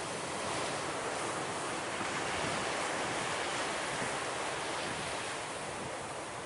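Ocean surf breaking on a rocky boulder shore: a steady rushing wash that swells slightly a couple of seconds in and eases a little near the end.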